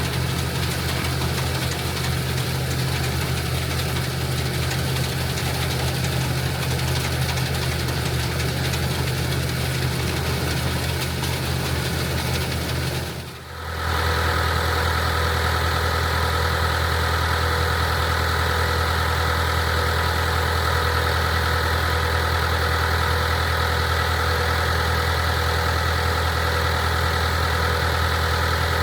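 Farm tractor engine running steadily together with the machinery of an International Harvester 82 pull-type combine at work. The sound dips briefly about halfway through, then carries on with a louder high-pitched whine over the engine.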